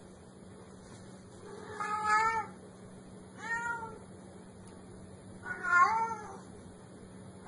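Domestic cat meowing three times, the middle call shorter and quieter than the other two.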